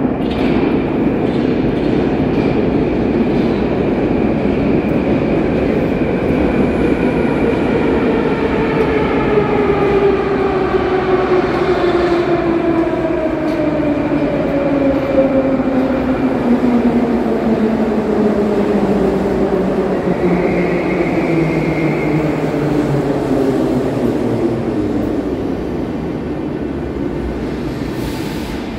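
Metro train pulling into the station and slowing to a stop. Its motors' whine falls steadily in pitch over about twenty-five seconds, with a brief high squeal about two-thirds of the way through.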